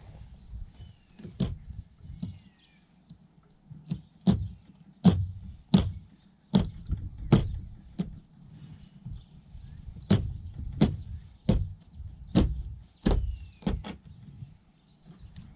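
A knife cutting a skinned eel open on a plastic folding table: a run of sharp, irregular knocks, roughly one a second, as the blade works through the flesh and hits the table top. A low rumble of wind on the microphone underneath.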